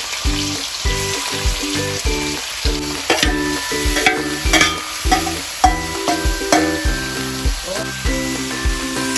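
Marinated meat sizzling in hot oil in a kadhai as more is scraped in from a steel bowl with a spoon. There are sharp clinks of spoon on bowl around the middle, then stirring. Background music with a steady beat plays underneath.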